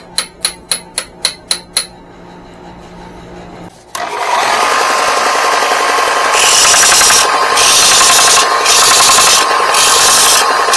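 A quick run of about eight metallic clicks, then a belt sander starts up about four seconds in and runs steadily. A small freshly cut metal piece is then ground against the belt in about five harsh passes of a second or so each.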